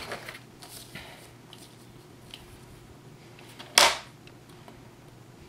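A paper trimmer cutting patterned paper: a faint rustle as the sheet is lined up, then one short, sharp swipe-and-clack of the blade about four seconds in.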